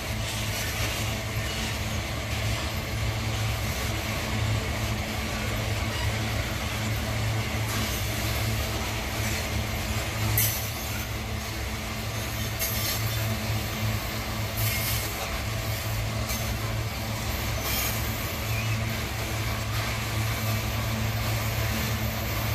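Freight train of ore-laden GDT gondola wagons rolling slowly past, with the steady low hum of a diesel locomotive engine underneath. A few brief, sharp high-pitched noises from the wheels come and go.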